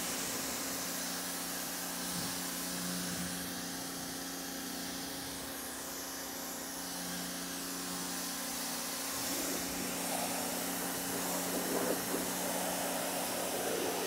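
TEANDE 1800 W electric pressure washer running, its pump motor holding a steady hum under the hiss of the white-tip water spray on the side of an SUV. About ten seconds in, the spray turns rougher and louder.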